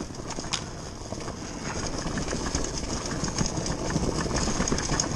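TM Racing MX250 dirt bike coasting downhill on a dirt trail with its engine off: knobby tyres rolling over dirt and roots, with the chassis rattling and knocking. It grows louder as the bike gathers speed.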